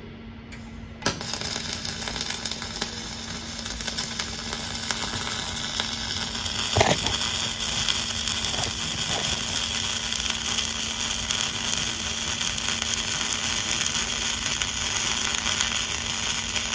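Dual-shield (gas-shielded) flux-cored wire arc welding: the arc strikes about a second in and then crackles and hisses steadily as the hot pass is run, with one brief louder pop near the middle.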